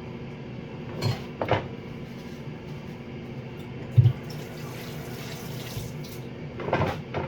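Water running, like a kitchen tap into a sink, with a few short knocks and one dull thump about four seconds in.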